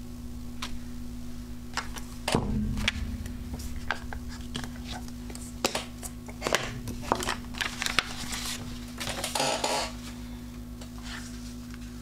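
Clear acrylic stamp block and card being handled on a craft desk: scattered light clicks and taps of hard plastic, with a short rustle about nine and a half seconds in, over a steady low hum.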